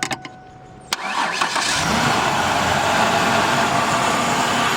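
1993 Ford Ranger engine started by bridging the starter solenoid's two contacts with a screwdriver: a few clicks, a sharp snap about a second in, then the engine cranks, catches and runs steadily. It starts once the solenoid is bypassed, the sign of a failed starter relay solenoid.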